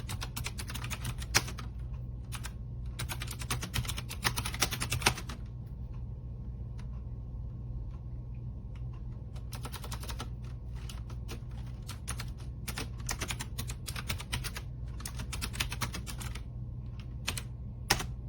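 Typing on the AULA F2088 mechanical keyboard's blue switches: bursts of sharp, clicky keystrokes with short pauses between runs, over a steady low hum.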